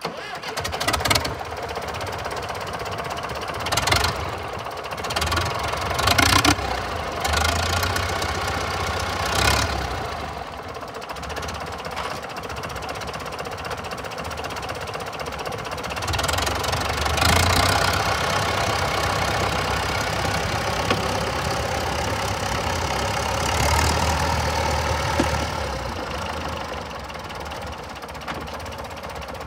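Case 830 pull tractor's engine running as the tractor drives slowly, with several short loud surges in the first ten seconds and louder spells later on.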